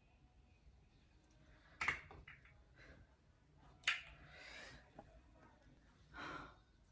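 Faint handling sounds: two sharp clicks about two seconds apart, a soft hiss just after the second, and a short breathy rush near the end.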